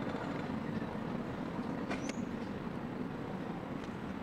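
Steady low rumble of street traffic, with a faint click about two seconds in.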